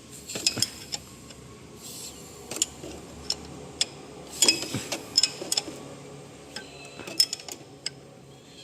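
Irregular sharp metallic clicks and clinks, some ringing briefly, of hand tools and metal parts being handled while an engine is dismantled.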